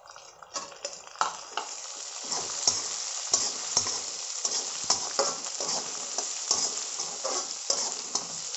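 Raw chopped vegetables (carrot, capsicum, cauliflower) sizzling as they hit hot oil in a wok, the sizzle building about a second in, while a metal slotted spatula scrapes and clicks against the pan as they are stirred.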